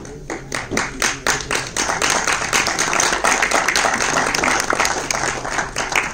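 Audience applauding: scattered claps that swell into dense applause about two seconds in, then thin out near the end.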